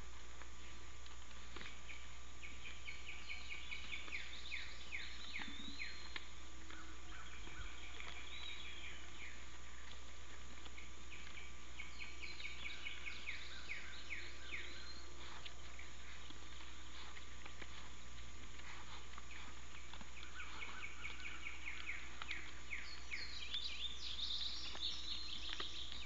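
Small birds singing quick high chirping phrases in several bouts, over a steady low hum in the outdoor background.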